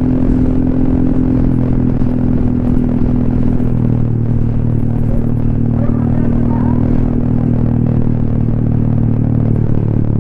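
Honda ADV 150 scooter's single-cylinder engine running through an aftermarket SC Project exhaust silencer while riding at a steady pace. The pitch eases down slightly over the first few seconds, then holds steady.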